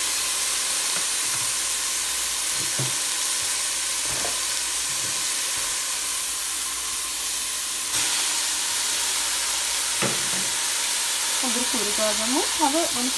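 Shredded collard greens frying in hot oil in a stainless steel pot: a steady sizzling hiss with a few light knocks.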